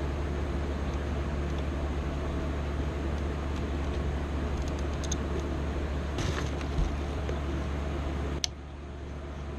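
Engine of a 2006 Nissan Sentra 1.8L idling steadily with a low hum. A sharp click comes about eight and a half seconds in, after which the sound drops a little.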